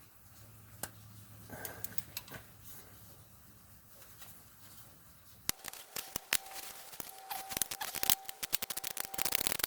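Ratchet wrench with a 13 mm socket clicking as the pulley bolt is backed out. A few scattered clicks at first, then fast, continuous clicking from a little past halfway.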